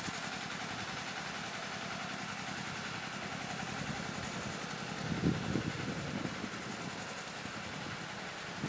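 Small single-cylinder diesel engine of a Kubota KRT 140 tractor running steadily under load as it pulls a plastic-mulch laying implement, with a few louder low thumps about five seconds in.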